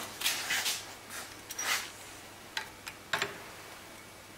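Handling of small steel parts of a Bosch common rail injector and a digital dial indicator, set up to measure the magnetic gap: a few soft scrapes and rustles, then several sharp metal clicks about two and a half to three seconds in.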